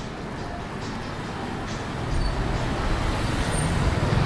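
A motor vehicle approaching along the street over a background of street noise, its low engine and tyre rumble growing louder from about two seconds in.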